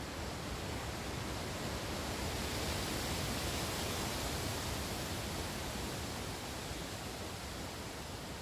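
Wind blowing through the leaves of a tree canopy: a steady rustle that swells in a gust about halfway through, then eases off again.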